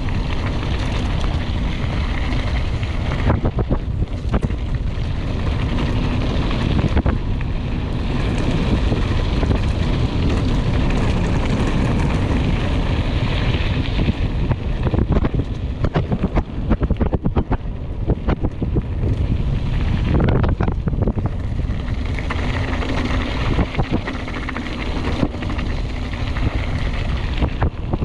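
Mountain bike descending fast on a rough trail: wind buffeting the action-camera microphone over the rumble of the tyres, with many short knocks and rattles from the bike over bumps.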